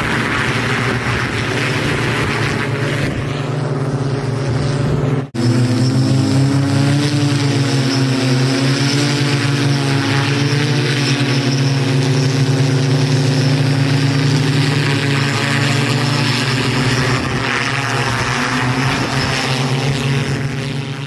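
Propellers of a Hoversurf Scorpion-3 quadcopter hoverbike whirring steadily in flight, a loud, even hum. The sound cuts out for an instant about five seconds in, then carries on.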